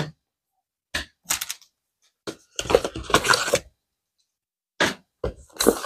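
Unboxing handling noise: short rustles, scrapes and light knocks as a cardboard phone box and its paper inserts are moved and the phone is taken out, in a string of brief bursts with silent gaps between them.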